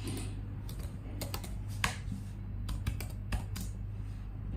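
Typing on a computer keyboard: a quick, irregular run of keystrokes over a steady low hum.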